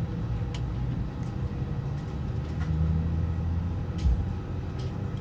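Airliner cabin noise inside an Airbus A319: a steady low rumble with a few scattered light clicks and a short low thump about four seconds in.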